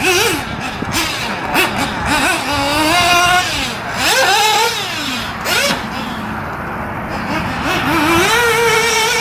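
RC buggy's motor revving as the car accelerates and brakes around a dirt track, its pitch rising and falling several times and holding high near the end.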